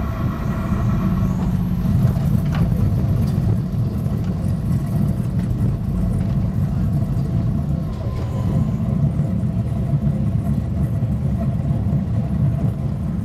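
Test Track ride vehicle running along its track at speed, a steady low rumble of tyres and running gear heard from inside the car.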